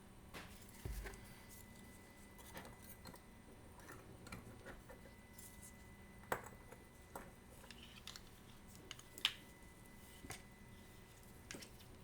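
Faint, scattered clicks and light taps of small metal watchmaker's tools and watch parts being handled at a bench, a few sharper clicks among them.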